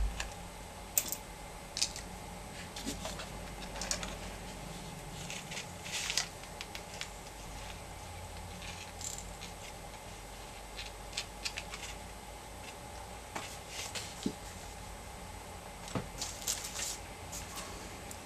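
Small seashells clicking and tapping against one another and the canvas as they are picked up and set in place: irregular light clicks coming in small clusters, over a faint steady hum.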